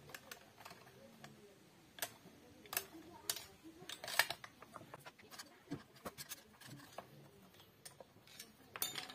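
Irregular light clicks and taps of a screwdriver and hands on the metal cylinder and parts of a stripped-down 72 cc chainsaw, with a quick cluster of sharper clinks about four seconds in and again near the end.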